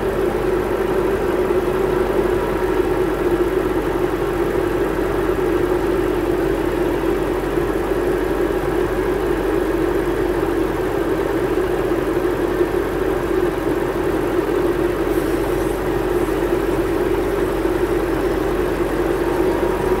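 BMW 7 Series E66 engine idling steadily, with the air conditioning switched on high for refrigerant charging.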